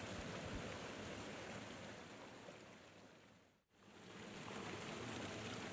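Steady rush of falling water from a waterfall. It fades out to almost nothing about three and a half seconds in, then swells back up.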